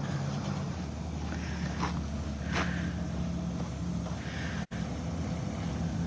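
Pickup truck engine running steadily while hitched to a livestock trailer, with a brief cut-out in the sound just under five seconds in.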